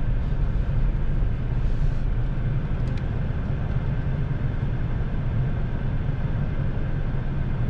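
Car driving along: a steady low engine and road rumble.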